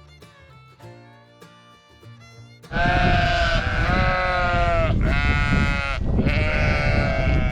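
Soft guitar music, then about two and a half seconds in a flock of sheep starts bleating loudly, a run of long overlapping bleats over heavy wind noise on the microphone.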